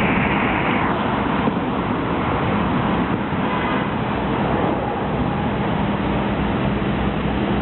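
CSX 3GS21B genset switcher locomotive's diesel engines running, a steady rumble with a constant low hum.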